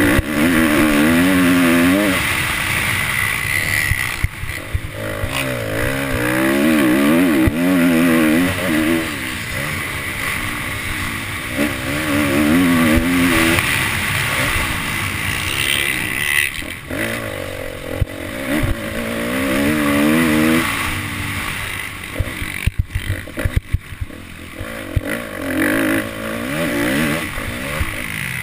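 Motocross dirt bike engine revving hard in repeated surges, a few seconds each, and backing off between them as it is ridden around the track, heard from the rider's helmet. Scattered sharp crackles come through in the second half.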